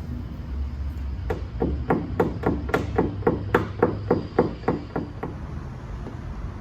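About fourteen quick, light hammer taps on a car's quarter panel, about three a second, each with a short metallic ring: paintless dent repair tap-down work on the panel's high spots. They start about a second in and stop near the end, over a steady low hum.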